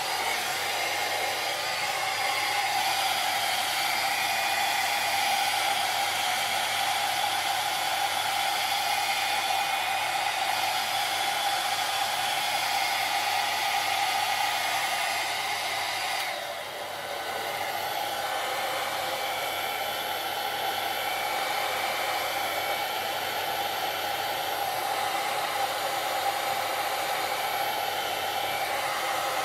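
Hair dryer-curler (hot air styling brush) running steadily: an even blowing rush with a steady whine on top. About 16 seconds in the sound dips briefly, then carries on as before.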